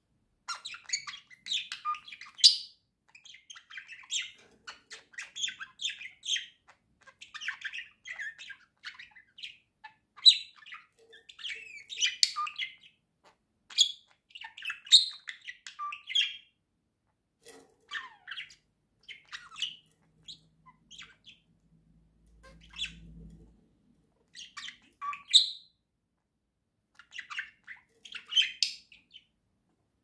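Pet budgerigars chattering: quick high chirps and scratchy squawks in dense runs, broken by short pauses.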